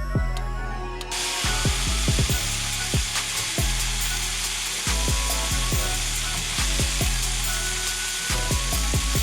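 Marinated steak tips sizzling as they sear in hot olive oil in a pan, the sizzle starting suddenly about a second in, over background beat music with a steady bass and drums.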